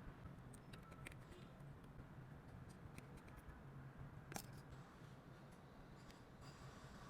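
Faint small clicks and taps from hand tools working on a smartphone under repair, over a low steady hum, with one sharper click about four and a half seconds in.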